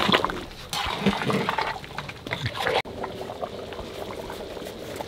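Thick chicken ghugni boiling hard in a large karahi while a ladle stirs it: wet bubbling and sloshing. About three seconds in it cuts off sharply to a quieter, steady background hiss.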